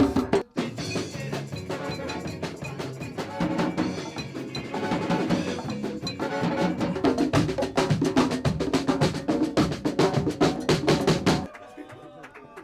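Music carried by fast, busy percussion, which stops abruptly about eleven and a half seconds in.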